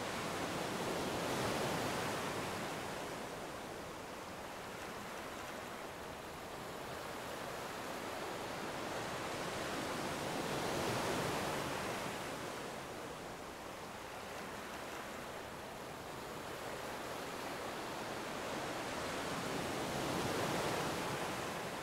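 Sea waves washing in on the shore: a steady rush that swells and falls back three times, roughly every nine to ten seconds.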